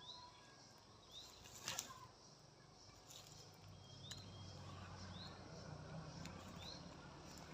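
Faint outdoor quiet with a bird's short rising chirp repeating about once a second. A single sharp knock comes near two seconds in, and a faint low hum comes up about halfway through.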